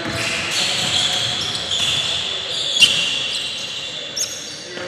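A basketball being dribbled on a hardwood gym floor, with sneakers squeaking as the players move. There is a sharper knock a little before three seconds in, and voices are faint in the background.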